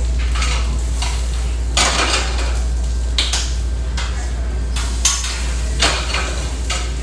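Short-order cook line at work: metal utensils scraping and clinking against the flat-top griddle and plates, with several sharp clanks, food sizzling on the griddle and a steady low hum underneath.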